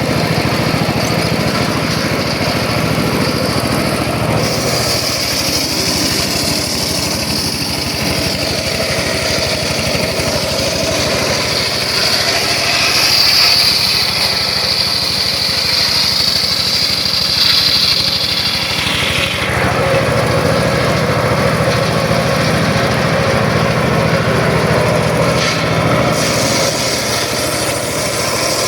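Engine-powered circular saw running steadily; from about four seconds in until about nineteen seconds a high-pitched whine rises over it, the blade cutting through wood, before the machine returns to its steadier running note.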